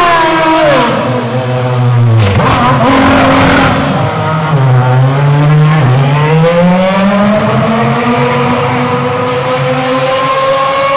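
BMW racing car engine dropping in pitch as the car slows. A rough, noisy stretch follows about two seconds in, then the engine climbs steadily in pitch as the car accelerates again.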